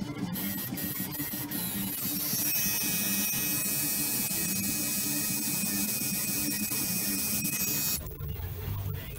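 Coil tattoo machine buzzing steadily as it works colour into skin, with a break near the end.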